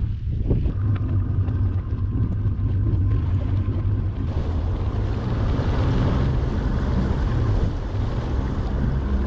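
Boat engine running steadily at low speed, a low rumble mixed with wind buffeting the microphone.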